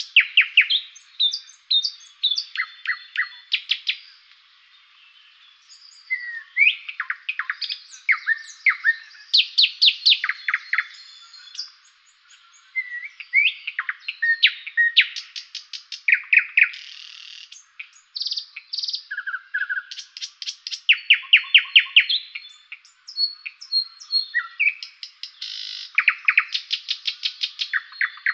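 Songbird chirping and trilling: quick runs of repeated chirps in bursts, with brief pauses between them.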